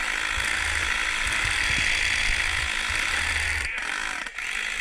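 Airsoft minigun firing in a long continuous stream, its motor and gearbox giving a fast, steady buzz, with a couple of brief breaks near the end.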